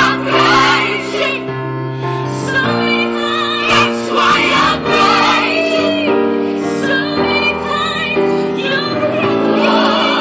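Gospel anthem sung by one woman multitracked into a choir of layered harmonies: sustained chords underneath and a lead voice with wide vibrato soaring above, with piano accompaniment.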